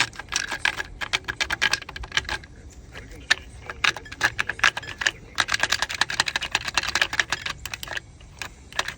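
Hand ratchet wrench clicking in quick bursts of rapid metallic clicks, several runs separated by short pauses, during engine work.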